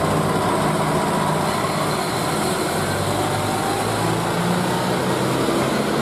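Large off-highway mining dump trucks driving past, their diesel engines making a steady, heavy drone.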